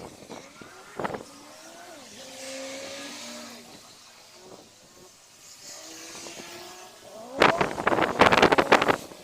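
A road vehicle passes, its engine note shifting in pitch. About seven seconds in, strong wind gusts buffet the microphone ahead of an approaching rainstorm.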